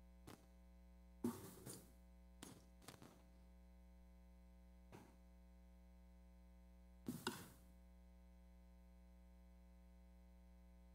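Near silence: a steady low electrical hum with a few brief, faint knocks and rustles, the loudest about a second in and about seven seconds in.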